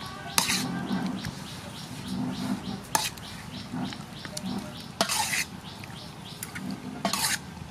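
Metal spoon knocking and scraping in a bowl as raw squid is stirred together with sauces, with a handful of sharp clicks spaced a couple of seconds apart.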